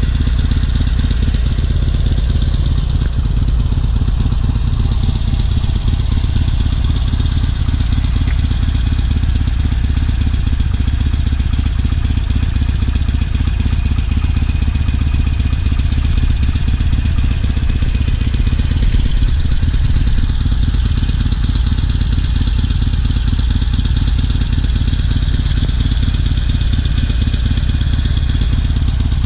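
Harley-Davidson Sportster Iron 883's air-cooled V-twin running steadily at idle.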